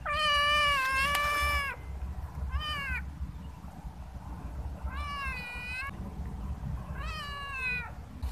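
Domestic cat meowing four times. The first meow is the longest and loudest, and the three shorter meows that follow each drop in pitch at the end.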